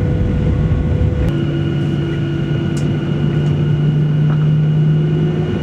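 Jet airliner cabin noise heard from a window seat. A loud low engine-and-air roar runs for about a second, then changes abruptly to a steadier engine hum with a held low drone and a faint high whine, as the plane rolls in the rain after landing.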